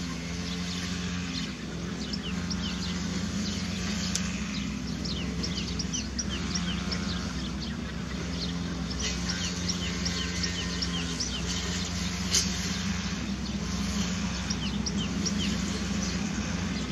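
Small birds chirping in quick, repeated short notes over a steady low motor-like hum.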